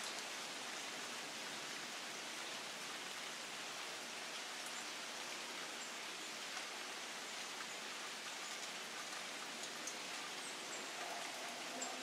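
Steady rain falling on leaves, an even hiss with a few faint ticks of drops.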